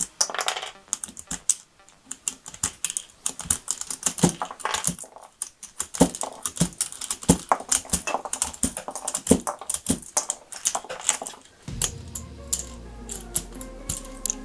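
Keycaps being pried off a mechanical keyboard with Cherry MX Brown switches, one after another: a rapid, irregular run of sharp plastic clicks and snaps as each cap pops off its switch stem and clatters onto the rubber mat.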